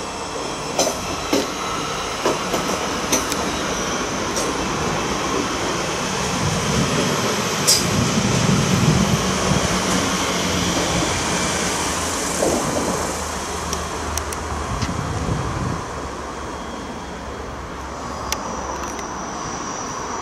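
Siemens Desiro electric multiple unit running past as it pulls out of the station, its wheels clicking over rail joints every half second or so at first. The steady rumble of the train swells to its loudest midway, then drops off after about three quarters as it draws away.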